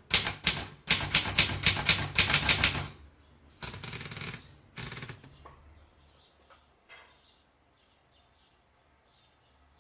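Continental Wanderer 50 manual typewriter being typed on: a quick run of keystrikes for about three seconds, followed by two short rasping sounds. Faint bird chirps follow.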